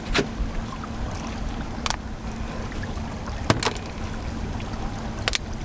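Steady low wind rumble on the microphone, broken by four sharp clicks spaced about a second and a half apart, as a live stone crab is handled and its claw is twisted off by hand.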